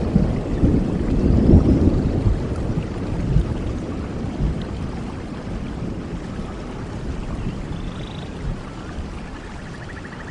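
Rolling thunder dying away over steady rain: a loud low rumble fades over the first few seconds, leaving the even hiss of rainfall. A few faint high chirps come near the end.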